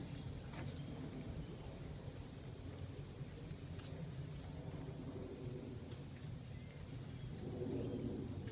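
Outdoor background ambience: a steady high hiss over a low rumble, with no distinct event.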